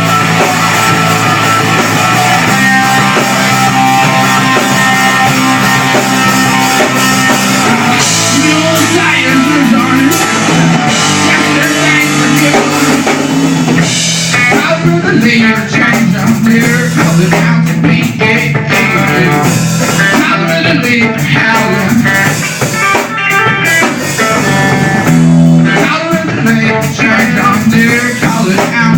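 Live rock band playing an instrumental passage, guitar over a drum kit, loud and recorded on a phone; the drumming gets busier about halfway through.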